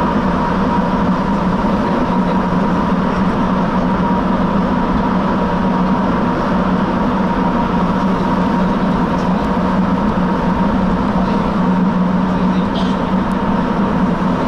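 Rubber-tyred Sapporo subway train heard from inside the car, running at a steady speed through the tunnel: a steady rushing rolling noise with a low hum and a steady higher tone.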